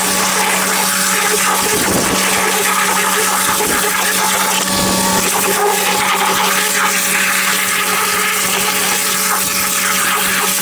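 Pressure washer spraying, a steady loud hiss of high-pressure water over the even hum of the machine's motor.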